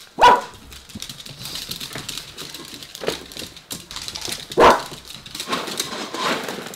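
Miniature dachshund barking for its breakfast: two sharp single barks about four and a half seconds apart, with a weaker one between them. Faint clicking and tapping run underneath.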